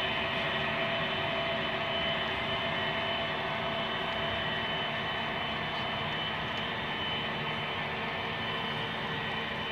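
HO-scale model double-stack container train rolling steadily along the track, a continuous even rumble of small wheels and well cars on rail.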